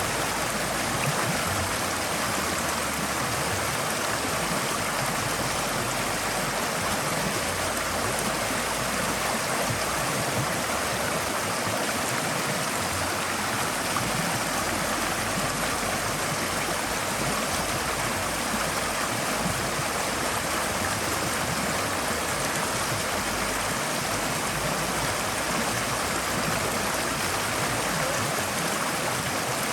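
Forest stream flowing steadily, an even rush of water over stones with a light gurgle.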